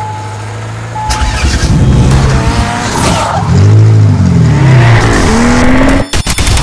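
Car-engine sound effect: a low steady hum, then from about a second in the engine revs up and down several times in rising and falling pitch, breaking off near the end in a few sharp stutters.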